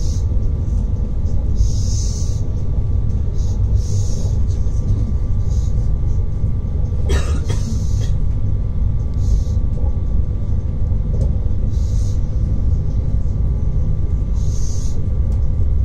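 Electric passenger train running at speed, heard from inside the carriage: a steady low rumble with a short hiss every couple of seconds. A brief sharp knock comes about seven seconds in.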